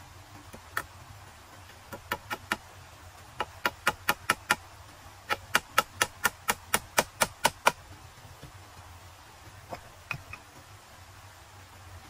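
Sharp knocks of something being struck repeatedly. They come in quick runs of four, six and then about ten strokes at roughly four a second, with a few fainter knocks near the end.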